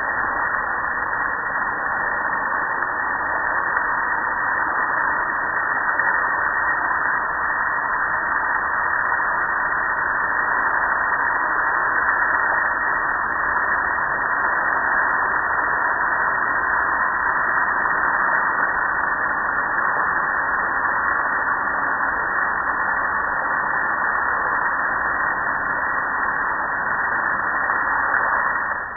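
Steady rush of water spraying onto a metal gas grill and streaming off it, which stops abruptly at the very end.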